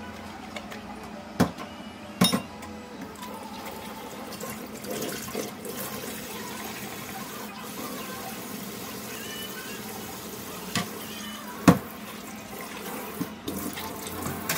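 Kitchen tap running into a stainless steel sink as dishes are washed by hand, with a few sharp knocks of glassware against the sink, the loudest about twelve seconds in.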